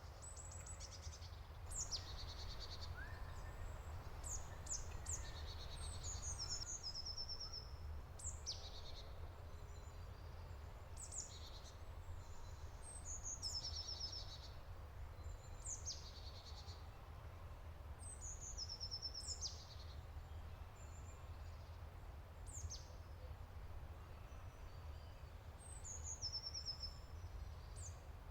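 Songbirds calling repeatedly: short high notes that drop in pitch and quick stepped phrases every two to three seconds, over a steady low rumble.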